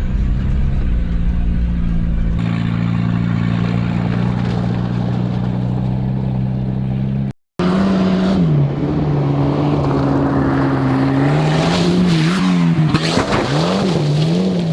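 Volvo 940's turbocharged four-cylinder engine, first running at a steady note, then cutting out for a moment. When it comes back it revs up and down several times near the end, with a rush of noise as it is pushed harder.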